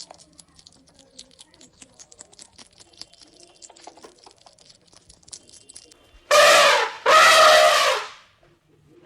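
Faint scattered clicking and rustling, then about six seconds in an animal gives two loud, drawn-out calls, the second longer.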